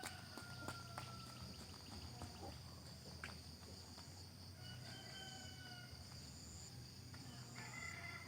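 Faint rooster crows, a long one past the middle and another beginning near the end, over a steady high chirring of crickets.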